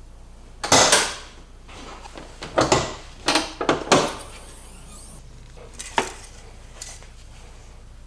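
A series of clattering knocks and clinks of hard objects, about seven in all, the loudest about a second in and a quick cluster a little later.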